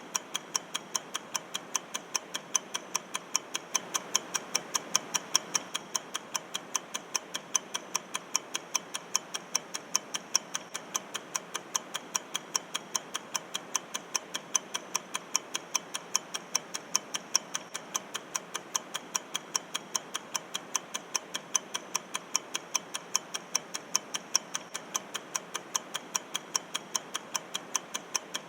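Countdown-timer clock ticking sound effect: rapid, evenly spaced ticks, a few a second, over a steady hiss.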